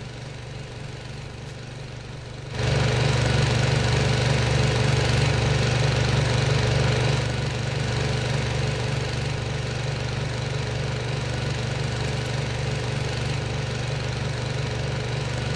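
An engine running steadily with a low rumble. It grows markedly louder about two and a half seconds in and eases slightly around seven seconds.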